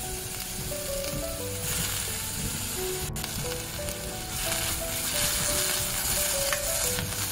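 Fresh curry leaves dry-roasting in an empty kadai, hissing and sizzling as their moisture cooks off while a spatula stirs them. Soft background music with a simple melody plays underneath.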